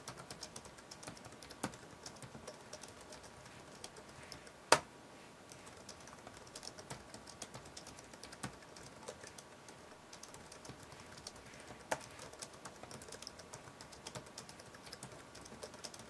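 Steady touch-typing on a slim non-mechanical desktop keyboard: a quick patter of soft key clicks, quiet but with a tactile feel. A few single keystrokes land louder, most of all one about five seconds in.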